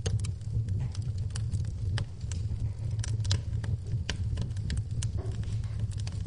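Wood fire burning in a fireplace, crackling and popping irregularly over a steady low rumble of the flames.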